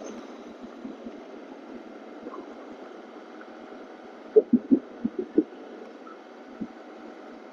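Steady wind and road rush from a motorcycle ride, heard through the rider's wireless mic, muffled and even. A quick run of short dull thumps comes about four and a half seconds in, and one more near the end.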